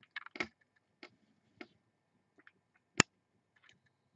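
Scattered light clicks from a computer mouse and keyboard, with one sharp, louder click about three seconds in.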